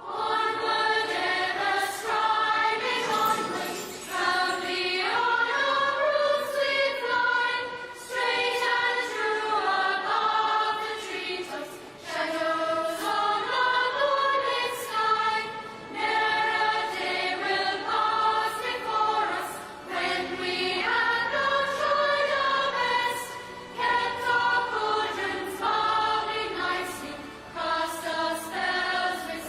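A sung theme tune: lead and group vocals over a band with a steady drum beat.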